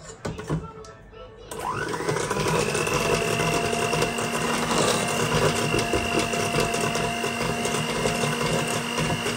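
Electric kitchen mixer beating flour into cake batter: a few clicks, then the motor switches on about one and a half seconds in, its whine rising in pitch and then running steadily.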